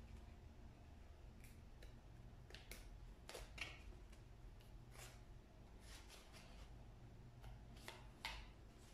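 Craft scissors snipping through a paper plate: a scattered series of short, faint snips with pauses between, as small holes are cut out.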